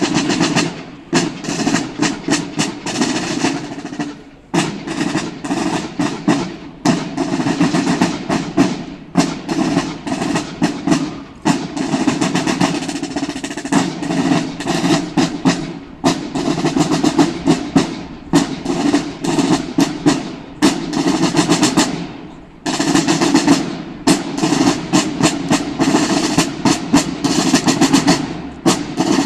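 Buekorps marching drums (snare drums) played on the march: fast rolls and rhythmic strokes in repeated phrases, with brief breaks every few seconds.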